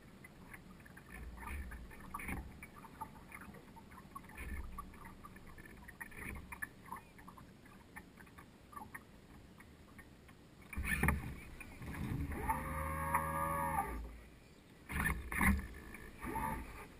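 Water lapping and splashing against the hull of a radio-controlled yacht, heard from a camera on its deck, with louder surges of splash about eleven seconds in and again near the end. Around thirteen seconds there is a brief whining tone that bends in pitch.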